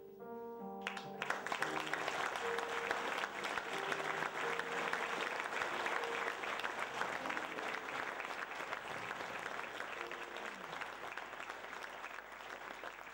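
Audience applauding, starting about a second in and carrying on, with a few soft held instrumental notes sounding underneath.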